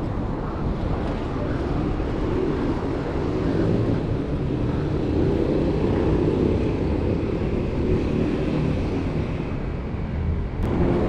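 Wind rushing over the microphone of a camera on a moving bicycle, with road noise, a steady low rumble. A single sharp click comes near the end, where the sound changes.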